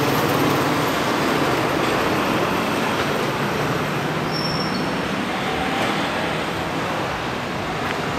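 Steady vehicle engine and road noise, heard while riding along a road.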